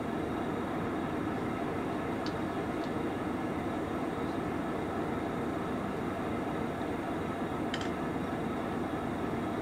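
Idling diesel engines running steadily, a low even rumble, with a few faint short ticks over it.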